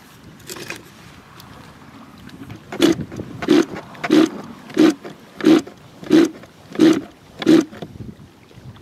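Eight evenly spaced strokes, about one and a half a second, from hand work at an RC boat's OS 21VF-R nitro engine, starting a few seconds in and stopping near the end.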